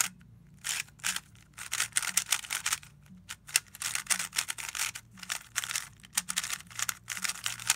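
Plastic 3x3 speedcube being turned fast by hand: rapid runs of clicking, clacking layer turns, with short pauses between runs.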